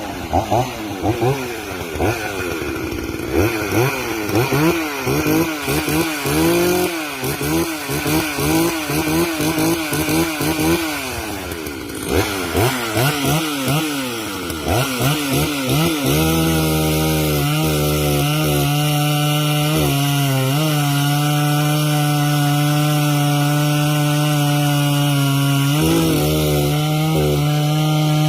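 Ported two-stroke Husqvarna chainsaw revved up and down in quick blips. From about halfway it is held steady at full throttle, dipping briefly twice.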